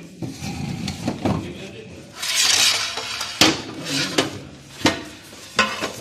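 Ceramic floor tiles being handled and set onto a manual tile cutter. There is a scraping slide about two seconds in, then several sharp clinks and knocks of tile against tile and the cutter.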